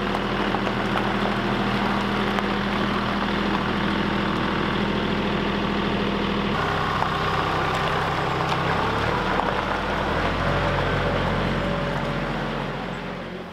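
Truck engine running steadily; its pitch shifts about halfway through, and the sound fades away near the end.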